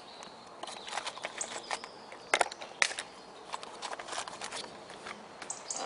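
Scattered light clicks and rustles of small accessories and their paper and plastic packaging being handled and put back into a carrying case, with a couple of sharper clicks a little past the middle.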